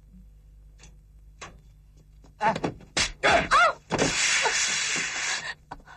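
A couple of faint clicks, then short cries and a door being forced open with a loud crash. About a second and a half of noisy commotion follows.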